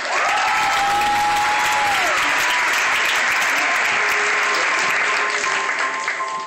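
Theater audience applauding and cheering, starting suddenly, with one long held call from the crowd over it for the first two seconds. Steady music notes come in under the applause about four seconds in as the clapping eases near the end.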